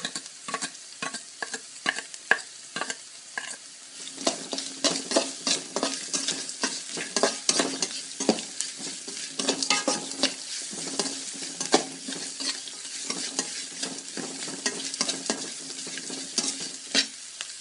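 Onions and crushed ginger-garlic frying and sizzling in hot oil, while a spatula stirs and scrapes the pan in quick irregular clicks.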